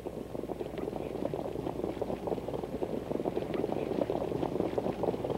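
Dense, irregular crackling rumble of racetrack ambience, with no clear pitch or rhythm, growing slightly louder.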